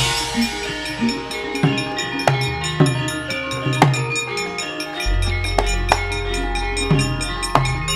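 Javanese gamelan playing fast fight-scene music: kendang drum strokes over struck bronze metallophones, with a deep low tone setting in about five seconds in.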